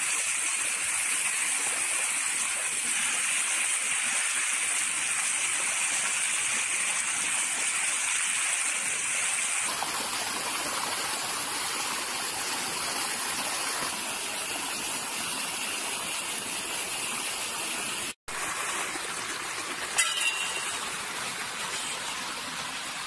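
Strong flow of water gushing over a concrete channel edge and splashing onto the ground below, a steady rushing sound. It cuts out for an instant about three-quarters of the way through, and there is one sharp tap shortly after.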